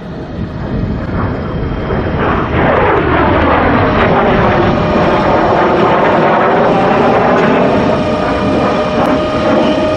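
MiG-17 jet fighter's Klimov VK-1 turbojet engine running loud as the jet passes overhead. The sound swells about two seconds in, with a sweeping whoosh that dips and rises in pitch as it passes, and stays loud until it eases off near the end.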